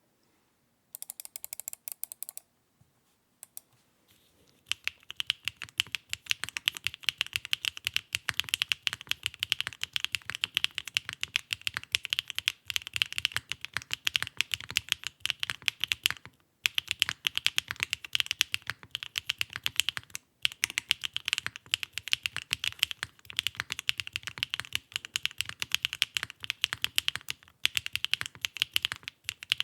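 Fast, continuous typing on a Mode Sonnet mechanical keyboard with stock BSUN Maple Sugar switches, a PP plate and KKB Machinist keycaps, with a few short pauses. The typing begins after a short noise about a second in and a few seconds of quiet.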